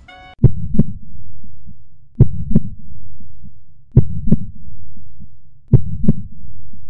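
Heartbeat sound effect: four double 'lub-dub' thumps, about one and three-quarter seconds apart, each followed by a low swelling rumble.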